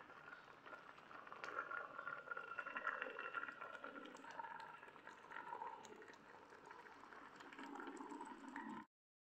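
Pot of pumpkin pieces boiling in water: faint, uneven bubbling that stops abruptly near the end.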